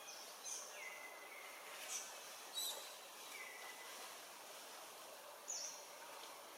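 Faint outdoor ambience: a steady hiss with scattered short, high calls. There are two quick falling chirps, two brief held whistled notes and a couple of sharp clicks.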